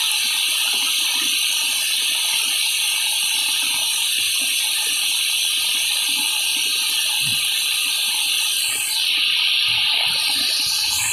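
Heavy tropical downpour with floodwater rushing across the ground: a steady, loud hiss of rain and running water.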